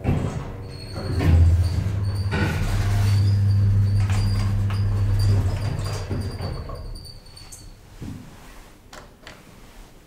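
Landing and car doors of a 1980s KONE hydraulic elevator sliding open, with a steady low hum from about a second in until a little past five seconds; it goes quieter near the end.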